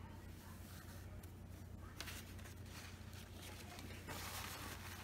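Quiet room tone with a steady low hum, and faint ticks and rustles from hands handling dotting tools and paint. A soft hiss rises about four seconds in.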